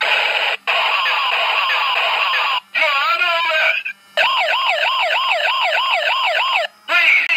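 A battery-powered toy police car's sound chip playing a string of electronic siren effects with short breaks between them, the longest a fast rising-and-falling wail, about three cycles a second, from about four seconds in.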